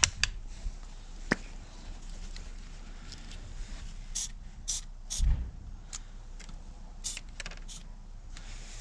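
An aerosol can of battery-terminal protector spray being taken out and handled: scattered light clicks and knocks, a few short high hissy bursts around the middle, and one low bump a little past halfway.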